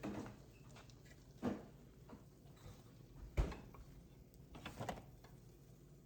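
A few separate soft knocks and thuds, four in all, the third the loudest, as of objects being handled, over a faint low hum.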